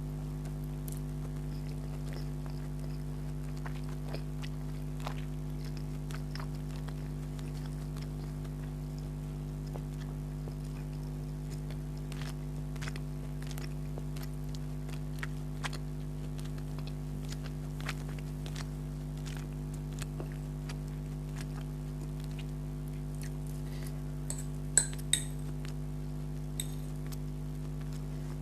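Eating sounds: soft chewing and small mouth clicks over a steady electrical hum, with a metal fork clinking sharply against the plate twice near the end.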